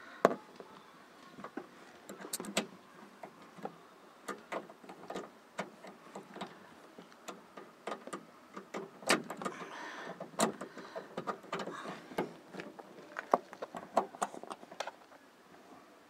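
Irregular metallic clicks and taps of a socket wrench on a long extension turning the 8 mm handle bolt inside a truck door's handle opening, with a few sharper knocks among them.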